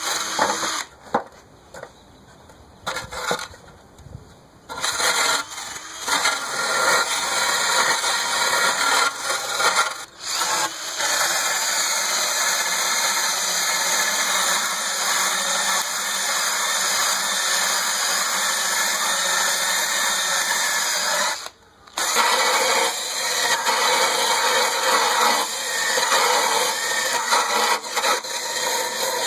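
Cordless drill spinning a wire brush against an aluminum snow shovel blade, scrubbing off rust around the rivet hole to prepare the metal for brazing. It runs in short bursts for the first few seconds, then steadily, stops briefly about three-quarters through, then runs on again.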